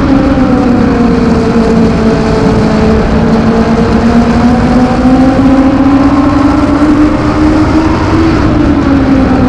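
INEX Legends race car's Yamaha four-cylinder motorcycle engine at racing speed, heard from inside the cockpit. The engine note dips about a second in, climbs steadily over the next several seconds as the car accelerates, then falls again near the end.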